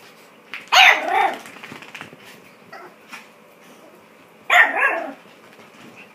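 Chihuahua barking twice, once about a second in and again near five seconds in, in protest at the sweater it has been dressed in.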